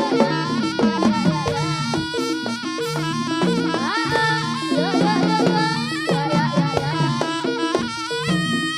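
Jaranan music from a Javanese gamelan ensemble: kendang drums and metallophones striking a repeating pattern of short notes under a reed melody that bends and slides in pitch.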